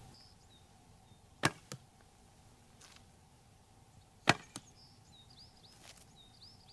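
Two shots from a wooden self bow: each is a sharp crack of the string on release, followed about a quarter second later by a fainter knock as the arrow strikes the hay-bale target. The shots come about three seconds apart.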